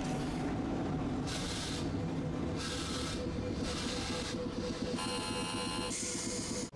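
Tosaden streetcar running on the line below: a steady low rumble and hum with a series of short hissing bursts about a second apart, one of them with a shrill ringing squeal. The sound cuts off abruptly near the end.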